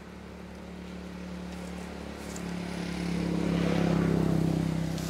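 A motor vehicle's engine passing by, its steady hum growing louder to a peak about four seconds in, then beginning to fade.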